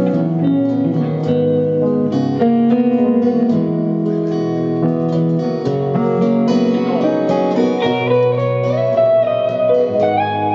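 Live country band playing an instrumental break: strummed acoustic guitar under a lead guitar line, with a few notes sliding up in pitch near the end.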